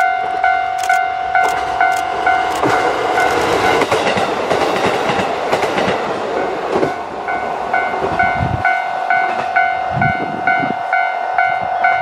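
Two-car KiHa 40 diesel railcar passing at speed, its engine and wheels running loudest from about two to seven seconds in. Under it an electronic level-crossing bell dings steadily about two and a half times a second, and keeps ringing after the train has gone.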